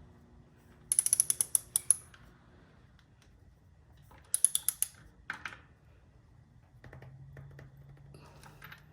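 Ratchet wrench clicking as the crankshaft bolt is tightened: two quick runs of sharp metallic clicks, about a second in and again after four seconds, with a few single ticks near the end.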